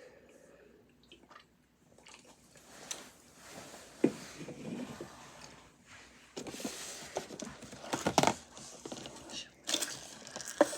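Handling noises from unpacking a slime kit: rustling packaging with scattered clicks and knocks, starting after about two seconds of near silence and growing busier toward the end.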